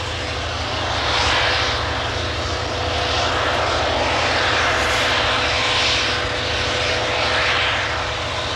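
Diesel engine of a semi-truck running steadily as it drives, a constant low hum with a thin steady whine over it.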